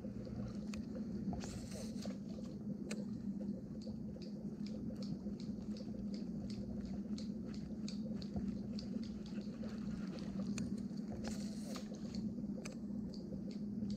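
Baitcasting reel at work on a cast-and-retrieve: two short whirring hisses, about one and a half seconds in and again near eleven seconds, as line runs off the spool, and quick light ticking of the reel during the retrieve. A steady low hum runs underneath.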